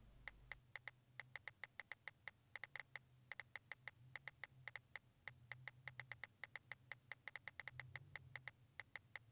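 iPhone keyboard clicks as a text message is typed: quick, irregular taps, about six a second, in bursts with short pauses.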